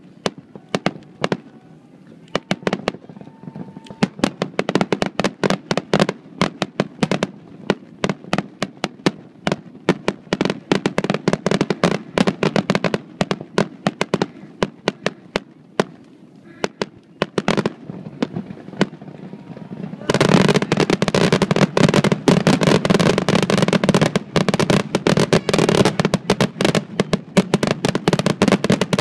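Fireworks display: aerial shells bursting in quick succession with sharp bangs and crackles. About twenty seconds in, the bursts thicken into a louder, dense, almost continuous barrage.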